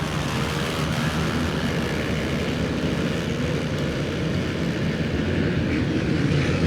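A pack of racing ATV engines running and revving together in a dense, continuous din.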